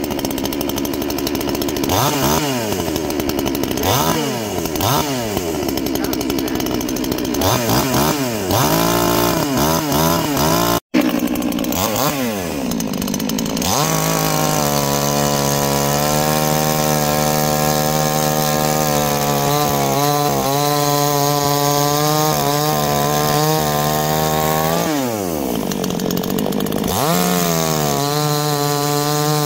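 Pinkway gas chainsaw's small two-stroke engine revving up and dropping back again and again in quick throttle blips. After a brief break it runs steadily at high revs. About 25 seconds in it falls toward idle, then revs back up as it cuts into a log near the end.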